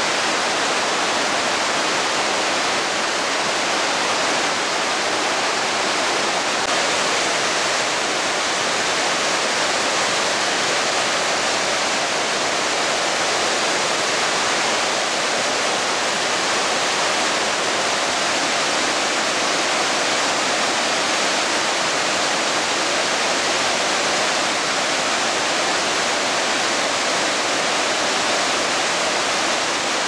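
The Rhine Falls rushing steadily: a great mass of river water pouring over rocks and churning into white water below, as one even, unbroken roar of water.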